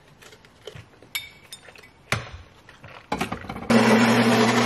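Small clicks and knocks of items being handled, then about three and a half seconds in an automatic bean-to-cup espresso machine starts running loudly with a steady whir and a low hum.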